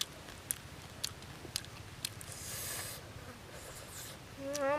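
Eating sounds: sharp mouth clicks and smacks about twice a second while chewing, with a short hiss in between. Near the end a long, steady hummed 'mmm' begins.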